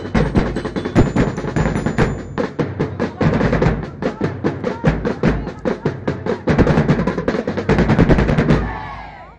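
Percussion-heavy music: a fast, dense beat of drum strikes, fading out near the end.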